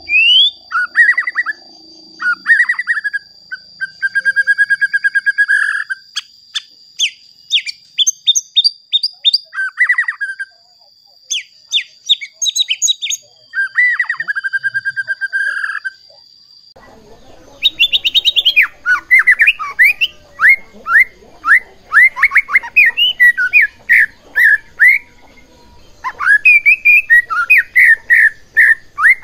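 White-rumped shamas singing. The song is loud whistled phrases: rising slurs, buzzy trilled notes held for a second or so, and quick runs of clipped notes. Just past halfway a different shama's song takes over, busier, with rapid falling notes.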